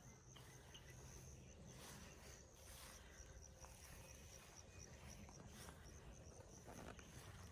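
Near silence: faint insect chirping, a high thin pulse repeating evenly about four times a second, over a low background rumble.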